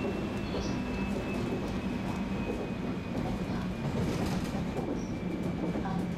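Electric train with a VVVF inverter drive running along, heard from on board: a steady rolling rumble with a faint, even inverter tone above it.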